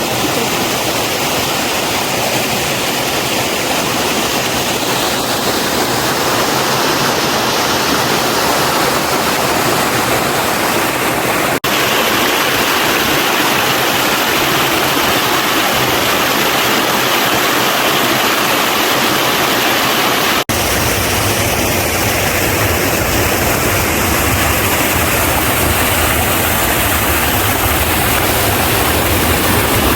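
Rushing water of a mountain stream and its waterfalls, running high and strong after heavy rain: a loud, steady wash of noise. It cuts out for an instant twice, and after the second break a deeper low rumble comes in under it.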